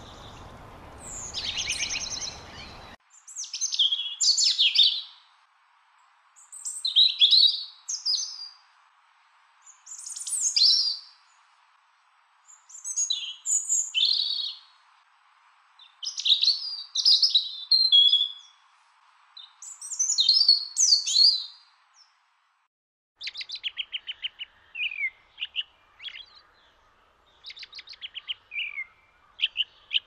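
European robin singing: high, warbling phrases about a second and a half long, separated by pauses of a second or two. For the first three seconds the song is heard over a steady hiss. After a brief silence a little over twenty seconds in, a quicker run of short, clipped notes follows.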